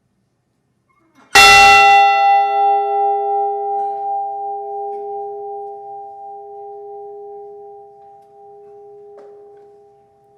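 A large bell struck once, about a second in, its bright clang fading over a few seconds into a long, slowly dying hum of a few steady tones. A memorial toll, one stroke for each lost crew member.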